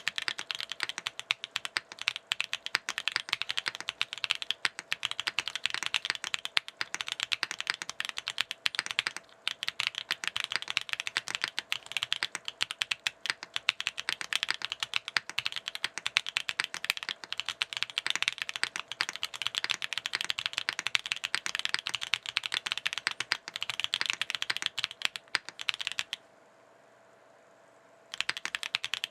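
Fast typing on a foamless NEO65 Core Plus mechanical keyboard with WS Heavy Tactile switches and KKB Nichirin keycaps: a dense, continuous run of keystroke clacks. There is a short break about nine seconds in, and a pause of about two seconds near the end.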